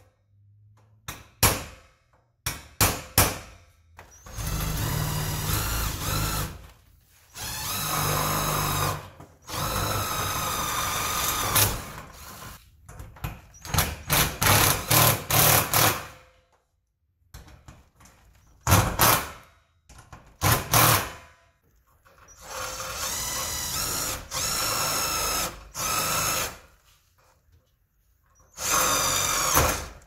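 A few hammer taps on steel, then a Hitachi cordless impact driver running in repeated bursts of one to three seconds, driving screws through a steel reinforcement strut into a garage door; partway through it hammers rapidly as a screw seats.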